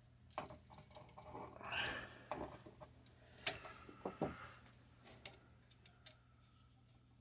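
Faint handling sounds of wiring an electrical outlet: light clicks and scrapes of stiff copper wire and tools against the receptacle, with a few sharper clicks about halfway through.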